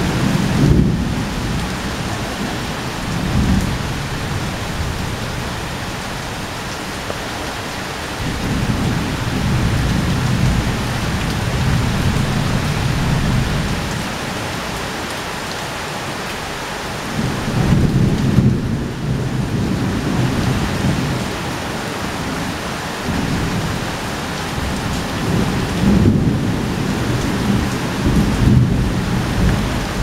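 Rainstorm: a steady hiss of heavy rain, with four low rumbling swells that rise and fall, each lasting a few seconds.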